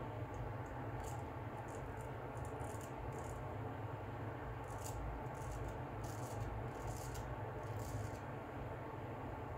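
Filarmonica Tridur 15/16 straight razor scraping through lathered stubble in a run of short, scratchy strokes, over a steady low hum.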